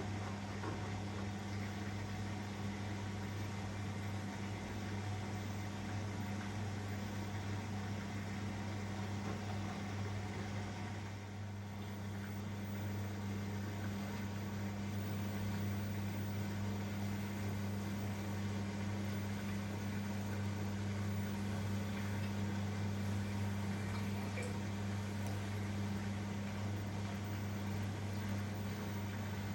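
Elin washing machine running mid-cycle between rinses: a steady low hum with a faint wash of water and motor noise, dipping briefly partway through.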